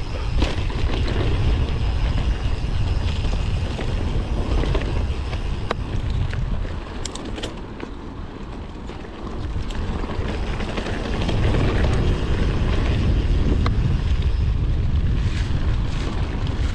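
Wind rushing over a GoPro's microphone on a moving mountain bike, with tyre noise from the trail and a few sharp clicks from the bike. The wind eases for a few seconds in the middle, then comes back.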